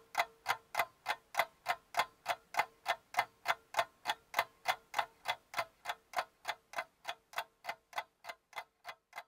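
Clock ticking steadily, about three ticks a second, with a faint steady tone beneath; the ticks fade near the end.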